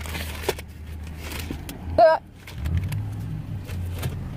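Car engine idling, heard as a steady low rumble from inside the cabin, with a few small clicks and rustles.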